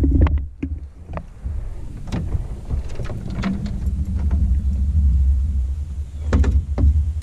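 Steady low wind rumble on the microphone, with scattered light clicks and knocks from the rod, reel and aluminium boat as a hooked catch is worked in.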